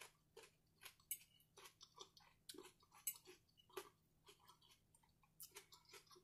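Faint close-up chewing of food: soft, irregular mouth clicks, a few each second.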